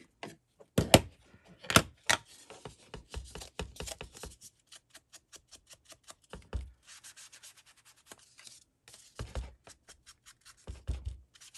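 Paper being worked by hand on a craft table: quick scratchy rubbing strokes in runs, with two sharp clicks in the first two seconds and a few dull knocks later.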